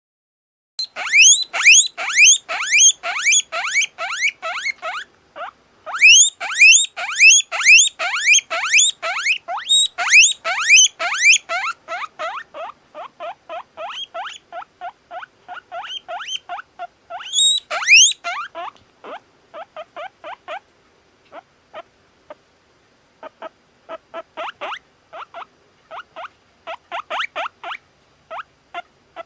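Guinea pig wheeking: a long run of short, high, squealing whistles, about three a second. The calls are loudest in the first half, then quieter and shorter, with a brief pause about two-thirds of the way through.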